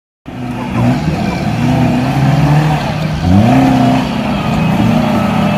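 Suzuki Jimny Katana's small four-cylinder engine running off-road, its pitch stepping up and down as the throttle changes, with a clear rev upward a little past three seconds in.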